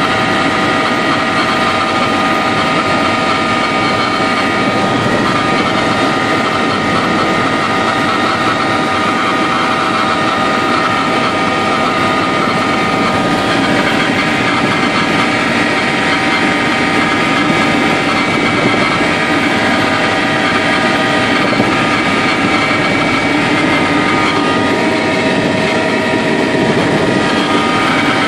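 Helicopter in flight, heard from inside the cabin: a steady engine and rotor noise with a constant whine of several high tones over it.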